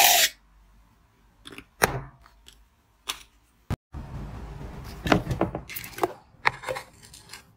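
An aerosol whipped-cream can ends a loud hiss of spray just after the start, followed by faint clicks. In the second half, several sharp knocks and clicks come as a moulded ice shell and silicone ice moulds are handled.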